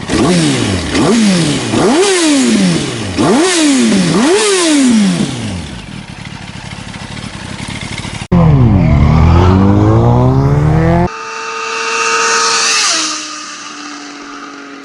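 A 2004–2006 Yamaha YZF-R1's inline-four with an Arrow aftermarket exhaust, blipped about five times in quick succession, each rev rising sharply and falling back, then dropping back toward idle. About eight seconds in, the sound cuts abruptly to a different loud sweeping sound, and after that to steady held tones.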